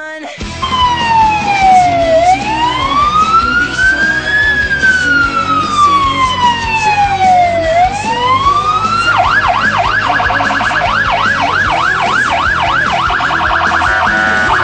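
Emergency vehicle's electronic siren sounding a slow wail, its pitch falling and rising in long sweeps, then switching about nine seconds in to a fast yelp, with a brief even faster warble near the end.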